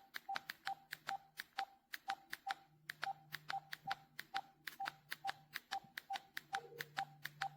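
Cordless phone handset keys being pressed over and over, each press a sharp click with a short key beep, about two or three a second, while scrolling through the menu.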